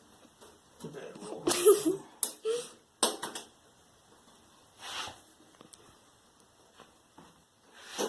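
Handling noise from thin plastic sheets and panels inside an LED TV being set back in place: rustling and wobbling of the sheets, a sharp click about three seconds in, and a few more scrapes.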